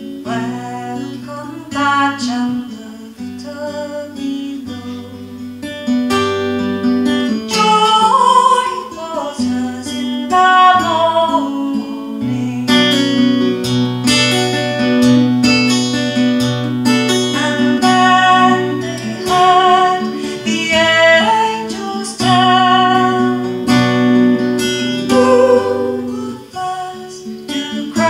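A woman singing a folk song, accompanying herself on a strummed acoustic guitar, with vibrato on her held notes.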